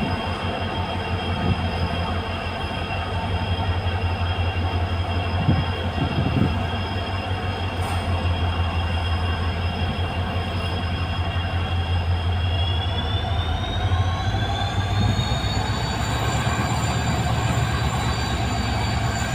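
A WDP-4D diesel-electric locomotive's EMD engine humming steadily as the train pulls away, with a low throbbing pulse under a high whine. About two-thirds of the way through, the whine rises in pitch and then holds, as the engine picks up.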